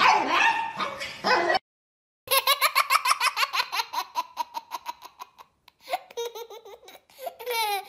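A small dog vocalizing, cut off about a second and a half in; after a short gap, rapid high-pitched laughter in quick even pulses, then brief wailing voice sounds near the end.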